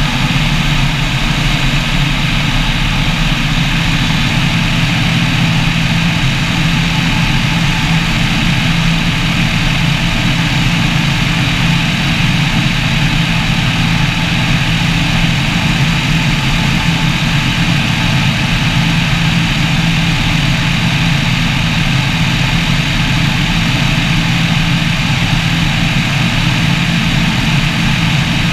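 Weight-shift microlight trike's rear-mounted engine and pusher propeller running steadily in flight, a constant drone with a hiss on top.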